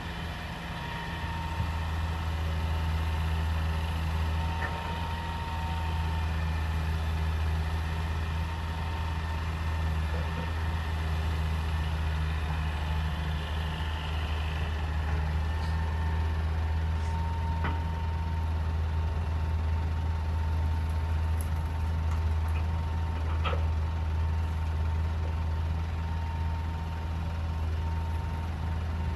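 Hitachi EX200 excavator's diesel engine running at a steady, even drone, with a few faint clicks.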